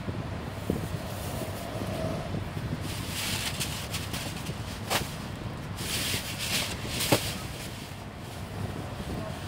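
An orange plastic rod rubbing over a cat's cheek and chin fur, heard as two stretches of scratchy hiss with a few light clicks, over a steady low rumble.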